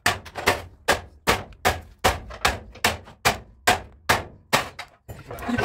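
Hammer blows on a car's bare steel body at the sill, struck in a steady rhythm of about two and a half a second, each with a short metallic ring, stopping about five seconds in.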